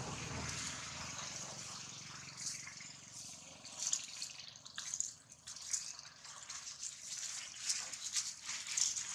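Dry leaf litter rustling and crackling as something moves through it, in short irregular bursts from a couple of seconds in, over a steady background hiss.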